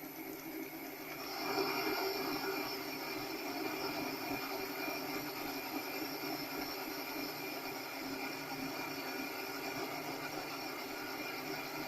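Mini lathe running with a 1/8-inch (3 mm) parting blade cutting into steel. A steady cutting noise comes in about a second in and carries on evenly over the machine's steady hum.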